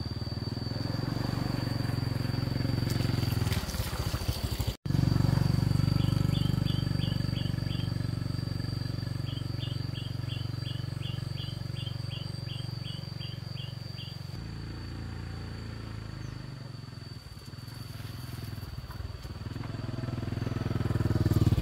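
Small motorbike engine running as it rides through a shallow stream and along a lane, getting louder near the end as it approaches. Short high chirps repeat about three a second in the middle, over a steady high whine.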